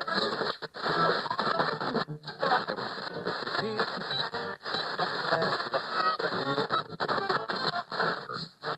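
Radio being tuned across the dial: short snatches of music and voices from different stations, each cut off abruptly every second or two.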